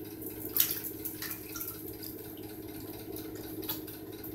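Baby raccoons handling and crunching peanuts and Goldfish crackers in a bathtub: scattered small clicks and crunches, the loudest about half a second in, over a steady low hum.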